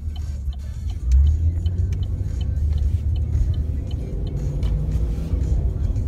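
A 2015 Chevrolet SS's 6.2-litre V8 heard from inside the cabin, getting louder about a second in and rising slowly in pitch as the car pulls away. The turn signal clicks steadily, about three clicks a second, and stops about four seconds in.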